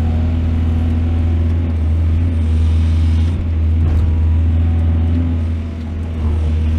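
Heavy excavator's diesel engine running steadily with a deep, continuous rumble, easing briefly near the end.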